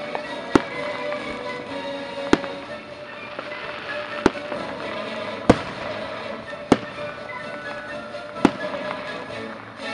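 Aerial firework shells bursting: six sharp bangs spaced one to two seconds apart, over music playing on a radio.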